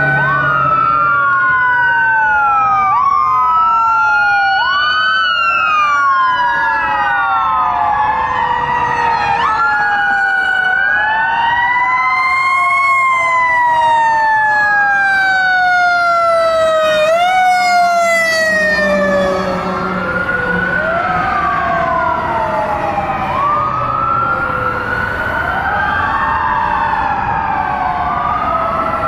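Sirens of a fire department ambulance and fire engine responding. Several wails overlap, each rising and falling over a few seconds, with fast yelping sweeps near the middle.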